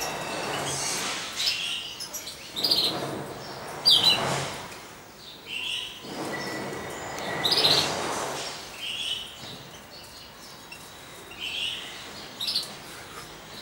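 Caged European goldfinches giving short, scattered chirping calls, several to a few seconds apart. A sharp call about four seconds in is the loudest. Stretches of rushing noise, each a second or two long, come and go under the calls in the first two-thirds.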